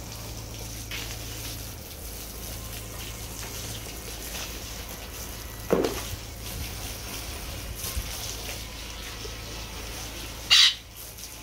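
Water from a garden hose trickling and splashing onto a dog and wet stone paving during a bath. Two brief louder sounds stand out, one about halfway through and a sharper one near the end.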